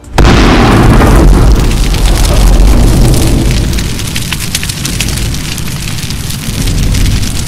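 An explosion sound effect: a loud blast bursts just after the start, and its deep rumble dies away over several seconds while dense crackling, like burning debris, carries on.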